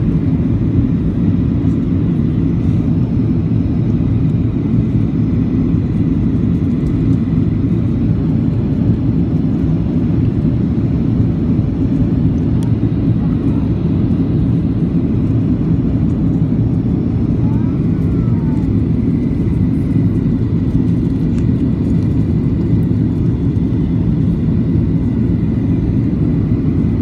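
Steady low cabin noise of a Boeing 737 on its landing approach, heard from inside the passenger cabin: jet engines and rushing air over the extended flaps.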